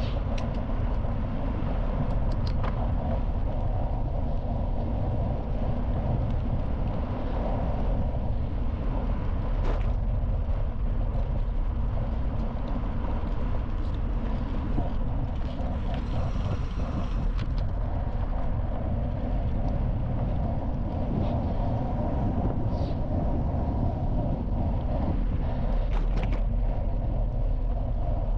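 Steady wind rumble on the microphone over the noise of bicycle tyres rolling along a gravel path, with scattered light clicks and rattles.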